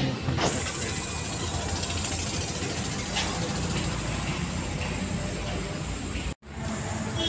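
Steady mechanical background noise, a low engine-like rumble with hiss, with a faint click about three seconds in; the sound cuts out abruptly for a moment near the end.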